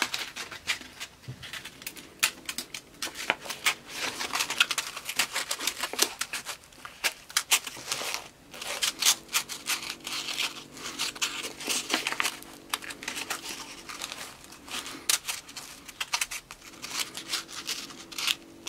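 A sheet of sandpaper rustling and scratching as it is wrapped tightly around a wooden sanding drum by hand and its ends pushed into a slot in the drum, in an irregular run of crinkles and small clicks.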